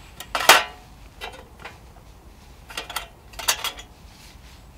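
Small metal stove parts clinking and rattling inside a metal tin as a hand sorts through it and lifts out the stove's burner plate. There are several separate clinks, the loudest about half a second in.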